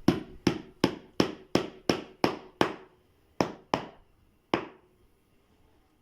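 Hammer blows in a steady run of about three a second, then three slower strikes, the last about four and a half seconds in. Each knock rings briefly.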